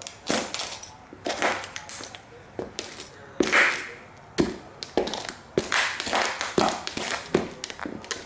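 Sneaker soles stomping on and grinding tiny toy model cars to pieces on a hard wooden floor. A rapid, irregular string of sharp cracks, taps and crunches, with metal and plastic fragments scraping underfoot. The loudest crunch comes about three and a half seconds in.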